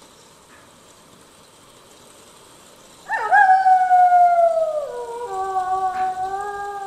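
Wolf howling: a long howl starts about three seconds in and slides slowly down in pitch, and a second, lower howl overlaps it from about five seconds in.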